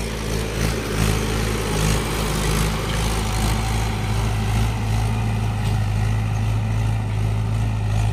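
Mahindra tractor's diesel engine running steadily while pulling a seed drill through the soil.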